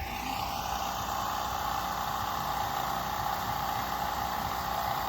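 A machine starts up and runs steadily: a constant mid-pitched whine over a rushing hiss.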